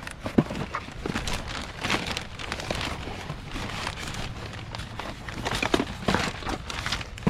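Rummaging through a pile of discarded electronics and junk by hand: irregular clicks, knocks and rustling as items are picked up and moved, with one sharper knock about half a second in.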